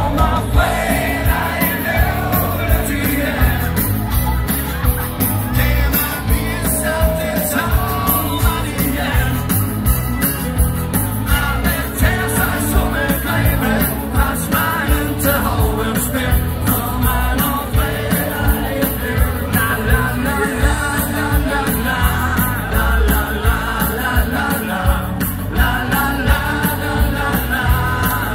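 Live band music played loud over a PA: a steady beat of about two strokes a second with a lead voice singing over it.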